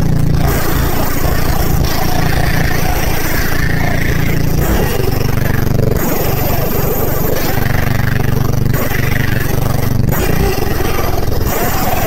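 Music played loud through two 12-inch Krack subwoofers in a box, with the deep bass the strongest part of the sound.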